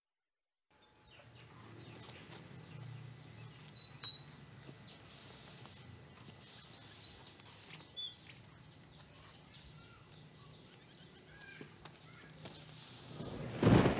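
Outdoor ambience of birds chirping, starting about a second in. Near the end a low rumble of thunder swells up and becomes the loudest sound.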